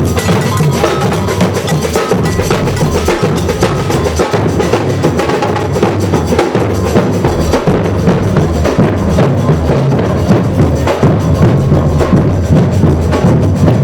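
A procession drum band playing loudly: bass drums and snare drums beating on with no let-up, with sharp clacking percussion on top.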